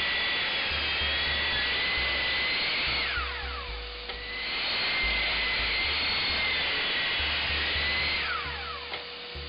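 Bosch mitre saw motor whining at full speed as it cuts 18mm plywood. It winds down about three seconds in, spins up again about a second later for a second cut, and winds down again near the end.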